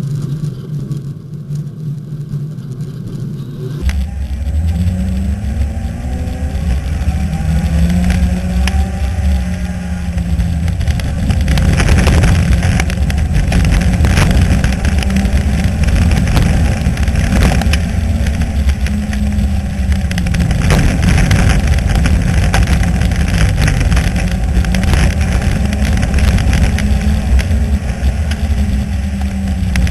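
Four-cylinder dirt-track race car's engine heard from inside the car. It runs quieter and steadier for the first few seconds, then its pitch rises and falls again and again as the driver accelerates and lifts off. It gets louder about 12 seconds in, with frequent sharp clicks over it.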